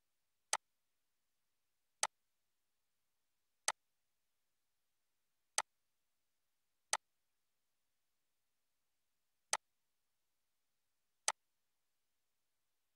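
Seven single, sharp computer mouse clicks at uneven intervals of one to two and a half seconds, with dead silence between them.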